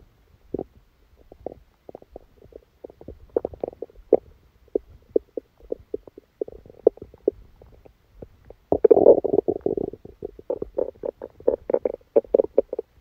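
Human stomach gurgling and rumbling from an upset stomach after a large meal. A string of short, irregular gurgles and pops builds into a longer gurgle about nine seconds in, followed by a quick run of bubbling pops.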